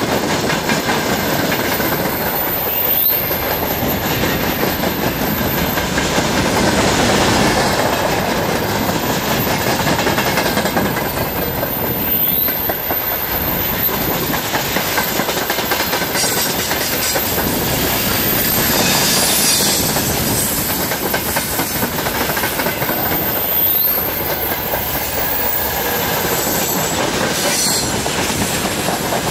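Freight wagons, open gondolas and covered hoppers, rolling past at about 55 km/h: a steady, loud rumble of steel wheels on rail with a thin high whine running through it.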